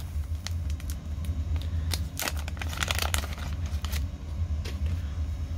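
Paper wrapper of a repacked baseball-card pack being torn open and crinkled by hand: a run of irregular sharp crackles and rips over a steady low hum.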